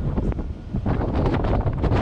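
Strong wind buffeting the microphone, a loud gusty rumble with rapid flutter and a brief lull about half a second in.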